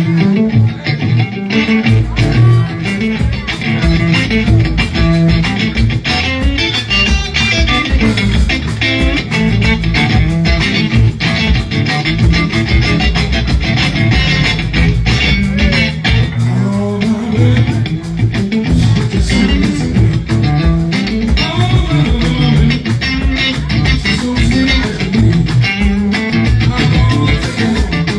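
Live blues band playing an instrumental passage: electric guitar lines over bass guitar, with a steady beat.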